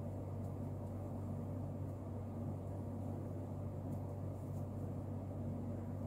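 A steady low hum with a faint hiss underneath, unchanging throughout.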